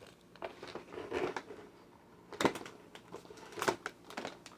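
Handling noise: rustling and crinkling of packaging and candy being moved around in a basket, with a few sharp knocks and clicks, the loudest about two and a half seconds in and again near four seconds.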